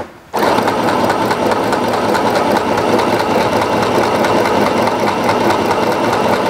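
A 505 mini portable sewing machine starting up about a third of a second in and running steadily at speed, its needle stitching a small zigzag.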